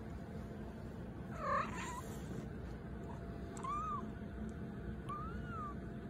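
Domestic cat making three small, high squeaky calls as it wakes: a louder chirp about a second and a half in, then two shorter squeaks that rise and fall in pitch, the last running into a yawn.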